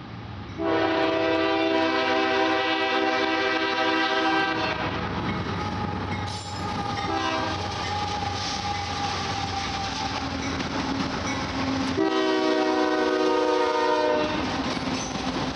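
Canadian Pacific diesel freight locomotives sounding their air horns: a long blast that starts about half a second in, short blasts near six and seven seconds, and another long blast from about twelve seconds, over the steady rumble and wheel clatter of the passing freight train.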